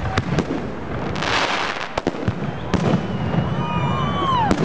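Fireworks going off: a string of sharp bangs, with a dense crackling hiss about a second in. Near the end come several whistles that fall in pitch.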